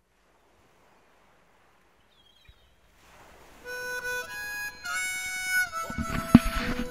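Silence, then background music begins about three seconds in, with held sustained notes like a harmonica or reed instrument. A single loud knock comes near the end.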